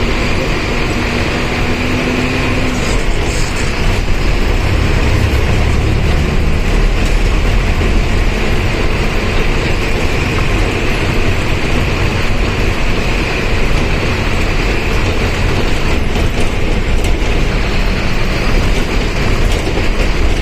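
Mercedes-Benz OF1519 BlueTec 5 bus under way: steady engine and cooling-fan noise with road rumble, heard from inside the bus. The low rumble grows heavier about four seconds in.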